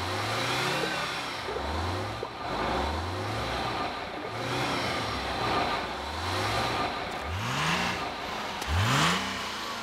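Cartoon bus engine idling in a repeated rhythm, a low rising rev about every second and a quarter. The last two revs near the end climb higher and faster.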